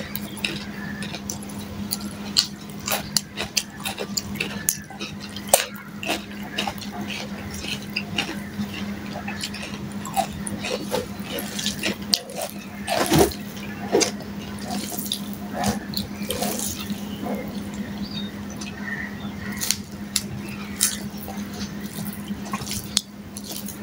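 Fingers mixing and squishing rice and fried hilsa fish on a steel plate, making many short, wet, irregular clicks, with mouth sounds of eating between them. A steady low hum runs underneath.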